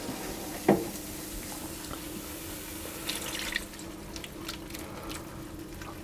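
Milk poured from a jug into a hot roux in a cast-iron casserole and stirred in, splashing and bubbling against a steady hiss from the pan. A single short knock sounds just under a second in.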